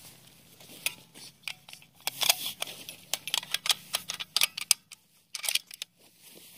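Close handling noise: a run of irregular small sharp clicks and rustles, busiest from about two to four and a half seconds in, over a faint steady low hum.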